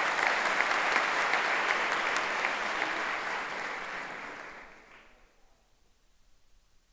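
A large audience applauding steadily, then fading out and stopping about five seconds in.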